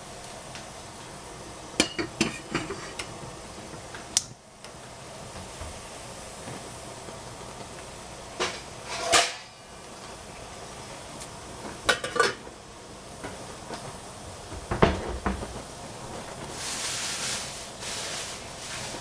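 Stainless steel pots and lids clinking and knocking against each other and the gas stovetop as a saucepan of water is set on a burner and covered, in several separate clusters of clatter over a steady hiss from the gas burners.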